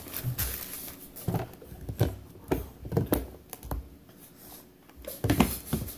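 Irregular light clicks and knocks from kitchen containers and utensils being handled.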